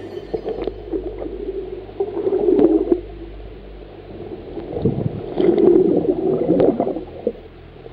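Underwater sound picked up by a camera dipped below the surface: water gurgling and bubbling past the microphone, swelling twice, with scattered clicks.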